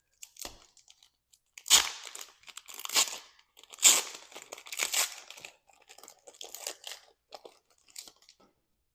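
Magic: The Gathering collector booster pack wrapper being torn open and crinkled, in several sharp rips loudest about two and four seconds in, then lighter rustling of the wrapper and cards.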